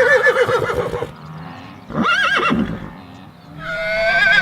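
Horse whinnying in three calls with a quavering pitch: one fading out about a second in, a short one around two seconds in, and a longer one starting near the end.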